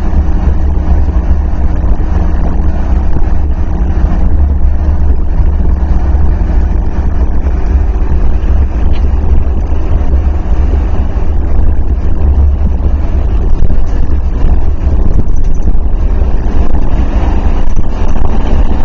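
Steady low rumble of a vehicle driving at highway speed, heard from inside the cab, with road and wind noise.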